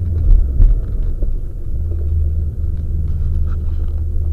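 Low rumble of a Subaru's flat-four running as the car drives on a wet track, mixed with wind buffeting on an exterior camera microphone. Two heavy low thumps come in the first second, and the engine note shifts a little about halfway through.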